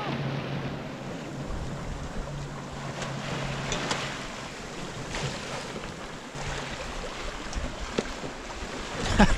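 Water rushing and foaming along the hull of a small sailboat running downwind under sail, with wind over the microphone and a low steady hum that drops out now and then.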